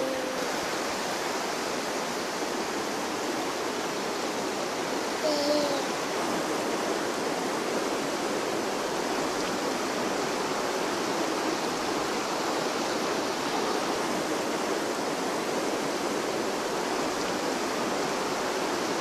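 River water rushing steadily over rocks, with a brief falling vocal sound about five seconds in.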